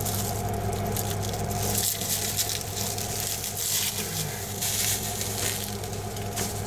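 Roller being worked over resin-soaked fiberglass cloth, a wet crackling squish that swells with each stroke, over a steady low hum.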